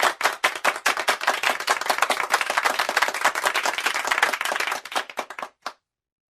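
A group of people clapping: dense, overlapping claps that thin out into a few scattered ones and stop about five and a half seconds in.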